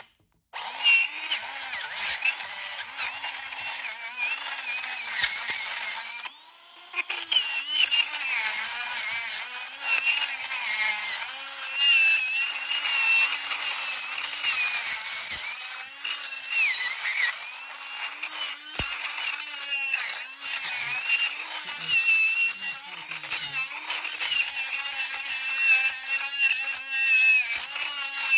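Hand-held rotary tool spinning a Magi Burr into a brass Chubb/Medeco biaxial lock cylinder, grinding out its pin chambers. The motor whine sags and recovers as the burr bites, with a short stop about six seconds in before it runs on.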